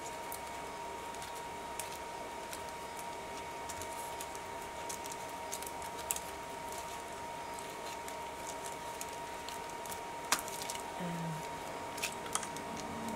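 Hands pressing and smoothing glued paper pieces onto a collage page, giving soft rustles and a few light clicks over a steady faint hiss with a thin high whine.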